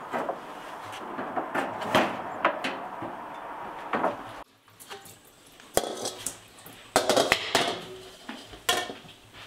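Cookware and utensils clinking and clattering against pots and dishes in a string of sharp knocks. They play over a steady hiss that cuts off abruptly about halfway, and the clatters after that are louder and more spaced out.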